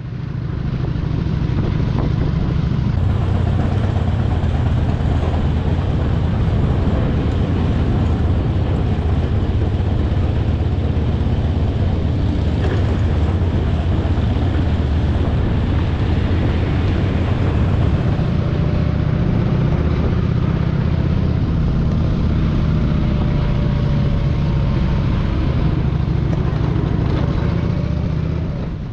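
Custom motorcycle engine running steadily under way on the road, its low exhaust note mixed with wind and road rush, the pitch shifting a little as the throttle changes.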